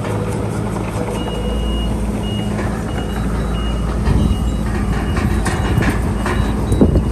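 Reverse warning alarm on a heavy earthmoving machine beeping repeatedly, about one and a half beeps a second, over a diesel engine's steady low rumble. Metal clanks and knocks come in the second half, the loudest near the end.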